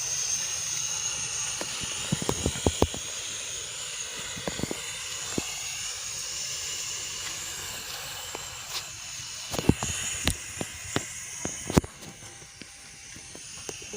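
Gas burner flame hissing steadily while a rabbit roasts on a wire mesh over it. Sharp crackles and pops come over the hiss, in a cluster about two seconds in and another around ten seconds in.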